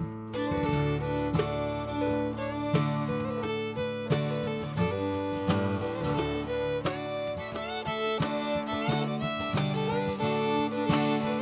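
Background music: acoustic bluegrass-style tune with fiddle and strummed acoustic guitar.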